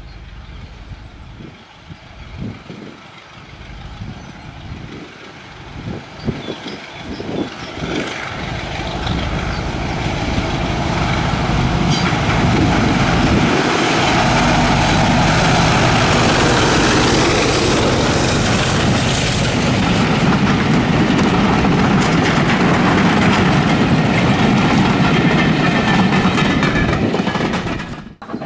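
A train passing close by on the line. It grows steadily louder over the first ten seconds or so, stays loud, then cuts off suddenly near the end.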